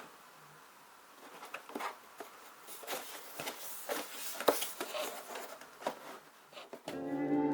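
Paper and cardboard rustling with light irregular taps and clicks as the model kit's instruction sheet and box are handled. Guitar music starts near the end.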